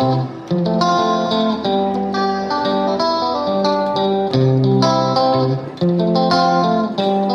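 Background music led by a plucked guitar playing a melody, with notes changing about every half second.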